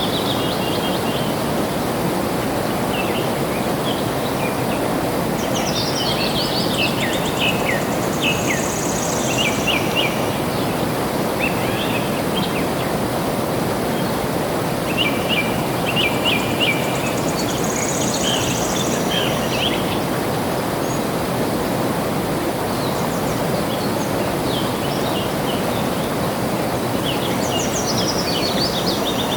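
Flowing water rushing steadily, with songbirds chirping and singing over it in several spells: quick runs of short notes and falling whistled phrases.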